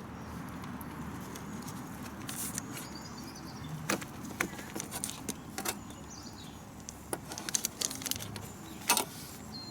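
Scattered light clicks, taps and scrapes of a knife and spoon against a tray and pine cone as lard is chopped and pressed into the cone's gaps.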